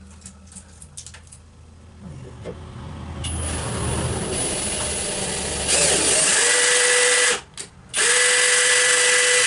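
Power drill driving a quarter-20 tap at low speed to cut threads in freshly drilled holes. It builds up, runs loud and steady with a whine, stops briefly about seven seconds in, then runs again.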